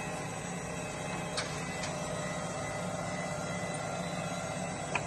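Jones & Shipman 1077 hydraulic cylindrical grinder running, its wheel head on continuous plunge movement: a steady hum with a few faint, even whining tones. Three short sharp clicks come through, about a second and a half in, again shortly after, and just before the end.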